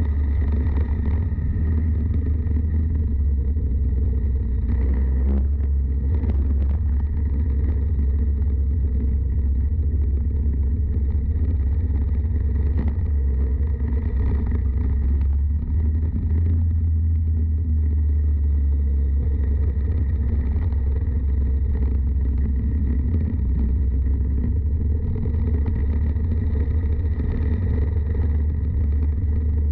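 Go-kart engine running, heard on the kart's onboard camera with a heavy, steady low rumble from wind on the microphone. There are a few brief knocks in the middle.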